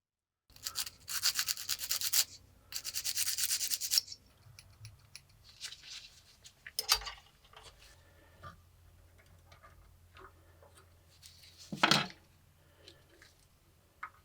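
Rapid hand scrubbing with a small brush in two quick bursts of strokes, then scattered light clicks and two sharper knocks, the second near the end the loudest.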